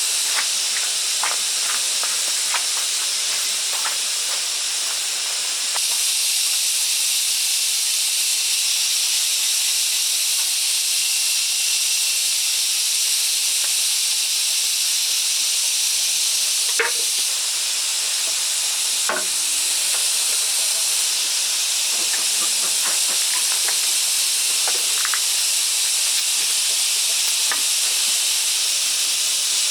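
Steady loud hiss, strongest in the high register, with a few faint light taps or clicks now and then.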